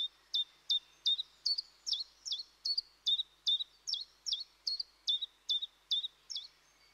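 A bird chirping a long run of short, high notes, each a quick downward slur, repeated evenly about two and a half times a second.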